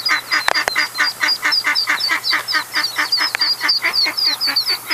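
Ducklings peeping over a duck quacking in a quick, steady series, about five calls a second.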